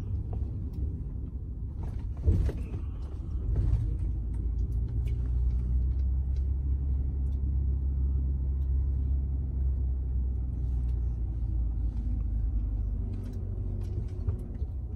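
Steady low rumble of a car running, with a few faint clicks and knocks.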